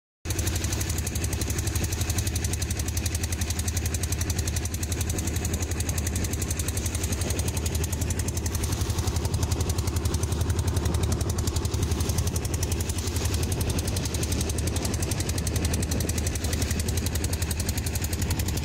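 Boat engine running steadily while the boat is under way: a low hum with a fast, even knocking beat.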